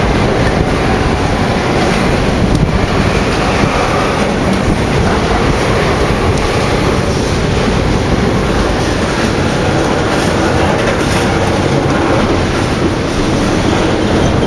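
Container wagons of an intermodal freight train rolling past, a steady loud rumble of steel wheels on the rails with occasional faint clicks from the rail joints.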